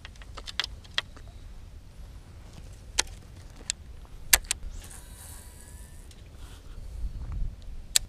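Scattered sharp clicks and taps from a baitcasting rod and reel being handled, the loudest a little over four seconds in, with a brief hiss about five seconds in, over a steady low rumble.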